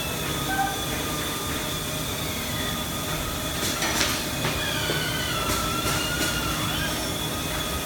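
Overhead crane hoists running as they lower a large floor panel onto a steel chassis: a steady mechanical noise with wavering high-pitched squeals, and a few sharp knocks about four and six seconds in.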